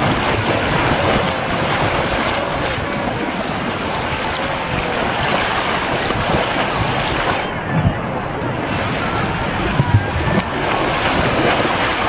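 Floodwater churning in a large whirlpool among chunks of ice: a steady, loud rushing of water, with two brief low thumps about eight and ten seconds in.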